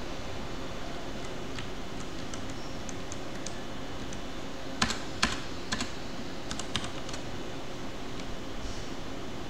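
Computer keyboard keys being pressed, a few at a time with pauses between, over a steady background hiss. The loudest keystrokes come in a cluster about five seconds in.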